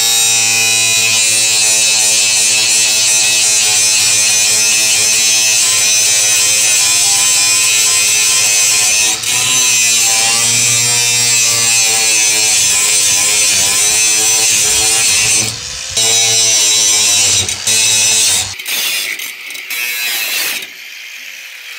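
Angle grinder running steadily, its cutting disc held against the steel cage bars of a plastic chemical tote, with a high whine and a hiss that waver a little in pitch under load. It cuts out briefly twice and then stops, leaving quieter, uneven sound near the end.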